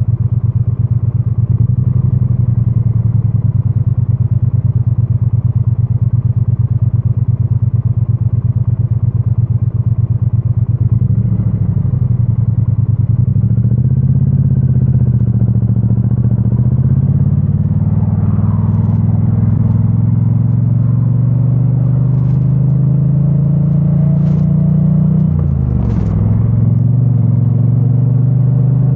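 2022 Triumph Bonneville T100's 900 cc parallel-twin engine through its stock exhaust, heard from a microphone in the rider's backpack: low, steady revs with an even pulsing for the first ten seconds or so, then the engine pulls away and revs climb steadily, with a brief drop near the end as it shifts gear before rising again. A few sharp clicks come in the second half.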